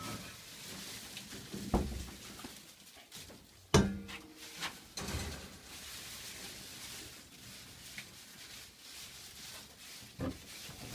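Handling sounds as bowls of fresh green hops are tipped out and spread onto drying netting: a few soft knocks and rustles, with one sharp knock that rings briefly, like a bowl struck or set down, about four seconds in.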